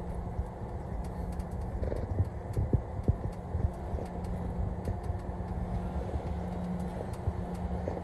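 Steady low road and engine noise inside a vehicle's cab cruising on a highway, with a faint steady hum and scattered short knocks and rattles.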